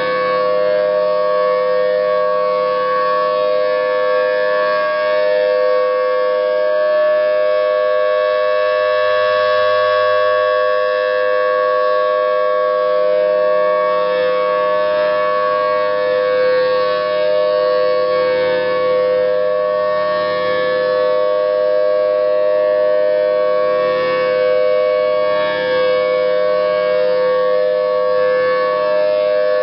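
Federal Signal Thunderbolt 1000T outdoor warning siren sounding a steady wail at full pitch: two close tones held together as a chord, swelling and fading slightly in loudness.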